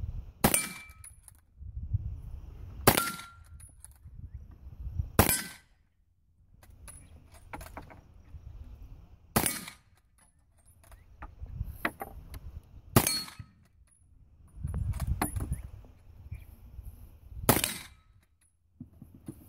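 Six rifle shots from a Krag-Jorgensen bolt-action rifle, spaced about two to four and a half seconds apart.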